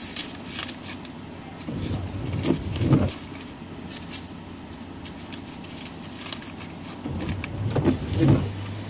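Car noise over a steady low hum, swelling twice, about two seconds in and again near the end, each time with a short rise and fall in pitch.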